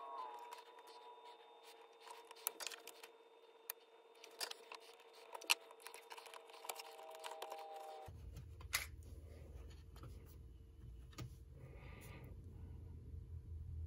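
Faint, scattered clicks and snips of small hand tools during circuit-board work, such as cutters trimming component leads, over a faint steady tone. A low hum comes in abruptly about eight seconds in.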